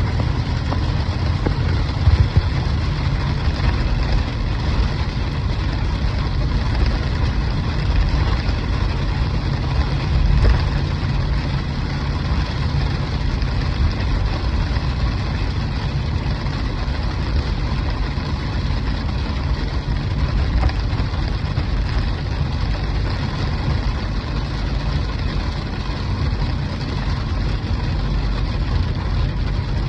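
Hail coming down hard in a steady, dense clatter with a heavy low rumble underneath.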